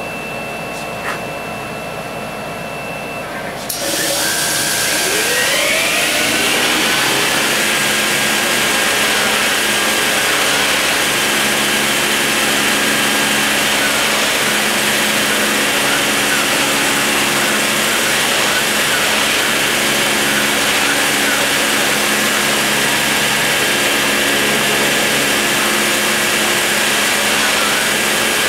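A Dremel rotary tool spins up with a rising whine about four seconds in, as a loud steady hiss comes on. It then runs at steady high speed while its bit cuts into MDF, with lower humming tones switching on and off as the CNC machine's axes move.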